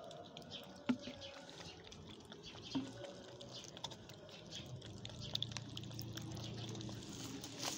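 Wet rice-and-meat cat food pouring and sloshing from a plastic bottle onto a plastic plate, with small wet eating sounds from kittens at the plates. Two sharp knocks, about one and three seconds in, are the loudest sounds.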